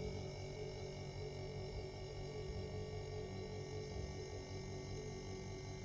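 Single-door refrigerator compressor running with a steady hum while it is being charged with freon and the pressure is rising.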